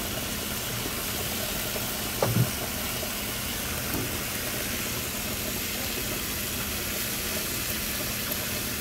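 Asparagus sizzling in butter in a frying pan: a steady hiss, with a brief thump about two seconds in.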